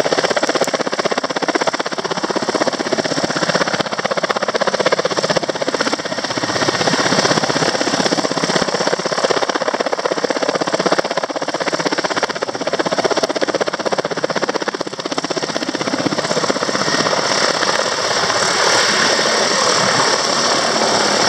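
Helicopter running close by: a loud, steady rush of turbine and rotor noise.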